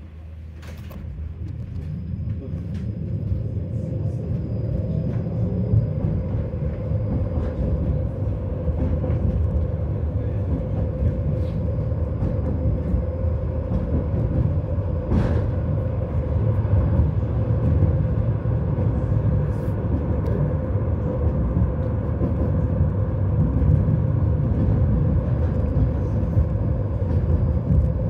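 A tram running along its rails: a steady low rumble of wheels and running gear with a held hum. It grows louder over the first few seconds, and a few clicks come through.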